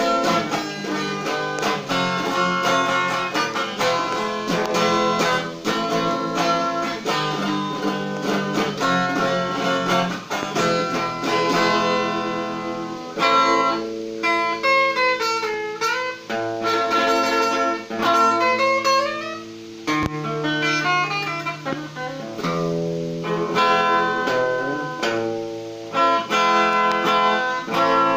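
Hollow-body electric guitar played solo: picked melody lines and chords, with notes bent up and down around the middle.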